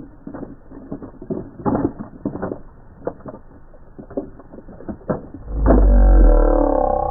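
Plastic toy monster truck tumbling and rolling down a dirt slope, clattering in irregular knocks as it hits dirt clods and stones. About five and a half seconds in, a much louder low rumble with a steady whirring tone takes over.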